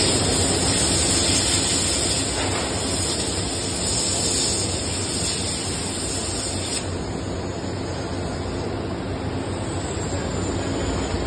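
Hydraulic compression-moulding press running with a steady machine drone. A high hiss stops suddenly about seven seconds in.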